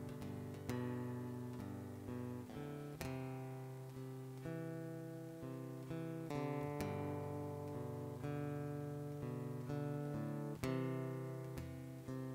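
Acoustic guitar playing slow chords, each one struck and left to ring out and fade before the next, with no singing.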